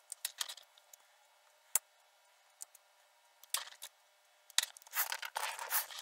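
Faint scattered clicks and rustling scrapes of hands handling plastic-sheathed audio jack leads on a desk. There is one sharp click a little under two seconds in, and the rustles come thicker in the last second and a half.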